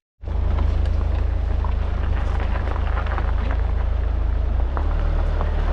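Steady road and engine rumble heard from inside a moving car, with small ticks of tyre and road noise.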